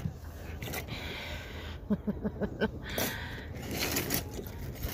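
Steel surgical and dental instruments clicking and clinking against each other in a cardboard box as a hand sorts through them, with a brief voice sound about two seconds in.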